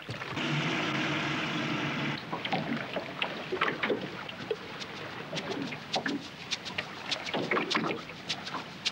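A steady pitched drone for about two seconds, then a run of irregular knocks and slaps as freshly landed horse mackerel thrash against the aluminium hull and deck of a small fishing boat.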